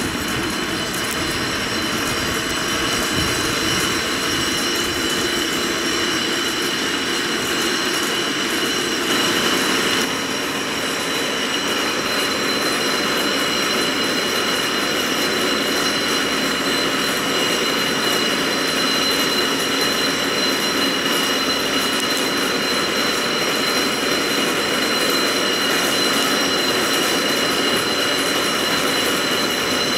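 Kintetsu Ikoma Cable funicular cars running on their cable-hauled track: a steady rumble and whir of the hauling cable and track rollers, with steady high-pitched tones over it.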